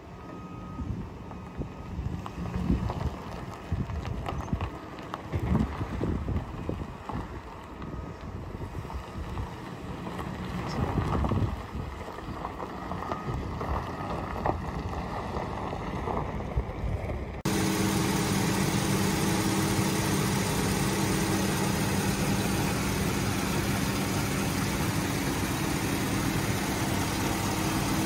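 Gusty wind on the microphone over a pickup's faint running engine. Then, after a sudden change about two-thirds of the way through, a 2006 Chevrolet Silverado's 4.8-litre Vortec V8 idles steadily, heard close up with the hood open.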